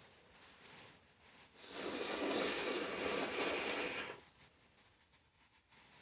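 A person forcing air hard through a snotty, irritated nose in one long blow of about two and a half seconds, starting a couple of seconds in.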